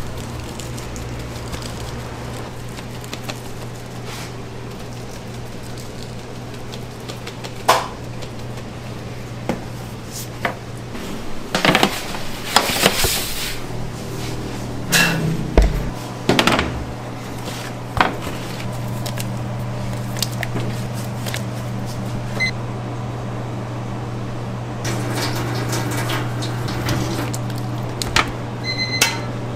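Bakery kitchen work: scattered knocks and clatters of pans, trays and utensils over a steady low hum of kitchen equipment.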